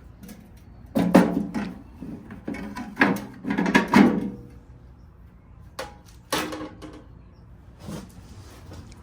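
Metal gas-can-style toolbox being taken apart: drawers and case clanking and knocking as they are handled, a quick run of loud hits in the first few seconds, then a few single knocks.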